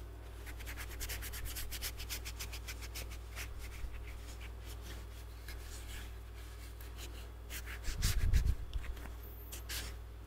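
A cloth pad rubbed briskly over a freshly turned wooden mallet, rapid scratchy wiping strokes as a finish is worked into the wood. A few dull bumps come about eight seconds in.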